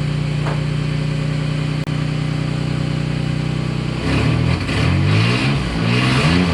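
Nissan Z31's V6 engine idling steadily, then revved up and down several times from about four seconds in. The exhaust note carries a leak, which the listeners place near the collector.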